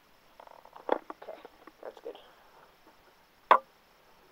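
Handling noises around a cardboard box: light taps and rustles, a knock about a second in, and one sharp, loud knock about three and a half seconds in.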